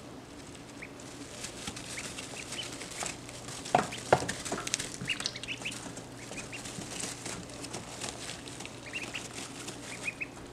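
Ducklings giving soft, scattered peeps while shuffling in loose wood shavings, with scratchy rustling and two sharper clicks about four seconds in. A faint steady low hum runs underneath.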